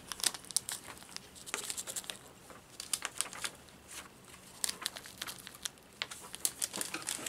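Plastic snack packet crinkling and crackling as it is handled, in many irregular sharp crackles.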